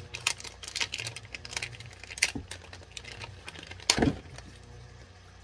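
Plastic bait packaging being handled and opened: a run of small crinkles and clicks, with a sharper click about four seconds in.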